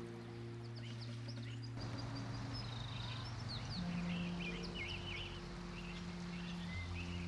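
Birds chirping and singing in many short, quick calls over soft, sustained low chords that shift every couple of seconds.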